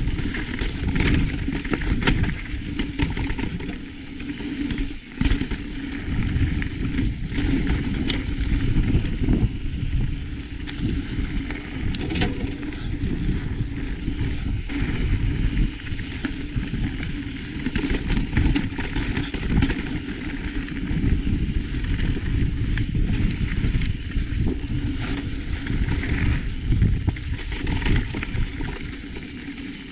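Mountain bike ridden fast down a rocky dirt trail: wind rushing over the camera microphone and tyres rolling over dirt and rock, with frequent short rattles and knocks from the bike over bumps.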